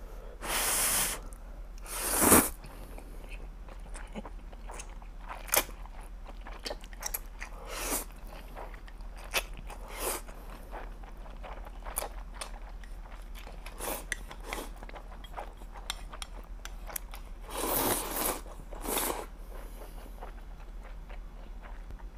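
A person slurping instant noodles from Korean army stew in loud drawn-in gulps, twice near the start and twice near the end, with quieter chewing and small clicks in between.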